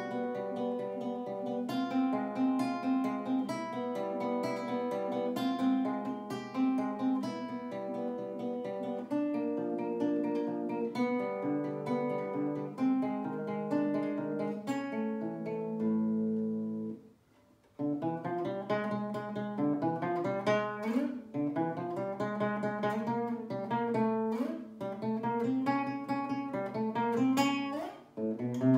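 Solo classical guitar played fingerstyle, a lively run of plucked notes over bass notes. About seventeen seconds in, a low chord rings out and breaks off into a brief silence, then the playing resumes with quicker, sharply plucked notes and chords.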